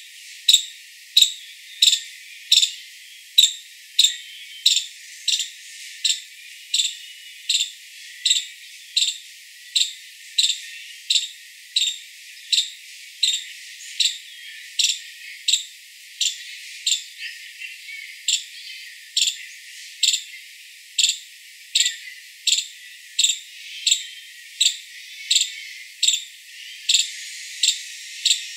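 Five-striped palm squirrel calling: a long, evenly spaced series of short, sharp, high-pitched chirps, about three every two seconds.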